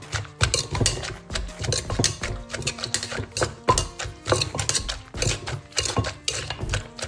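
Wooden pestle pounding shredded green papaya in a clay mortar, with a metal spoon scraping and turning the mix between strokes: a steady rhythm of dull thuds and knocks, about two a second, as papaya salad (som tam) is bruised together.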